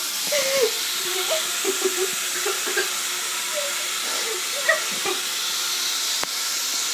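Bathroom sink tap running steadily into the basin, a continuous hiss of water, with faint brief voice sounds over it now and then.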